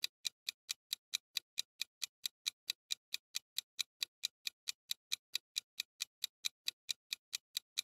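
Countdown timer sound effect: a clock-like ticking, light and high, evenly spaced at roughly four ticks a second.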